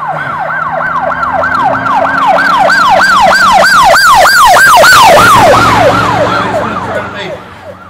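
Emergency vehicle siren in a fast yelp, about three sweeps a second, swelling louder to a peak about five seconds in, then dropping in pitch and fading as it passes by.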